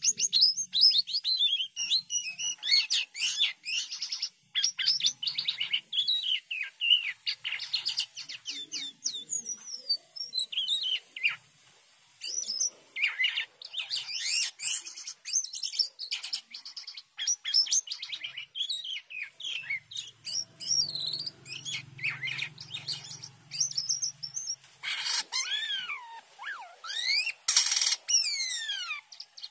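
Caged white-shouldered starling (jalak kapas) singing a long, varied song of rapid chirps and whistles that glide up and down, with a short break about twelve seconds in.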